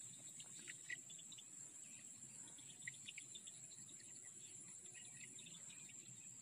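Faint, steady high-pitched drone of insects, with small scattered chirps.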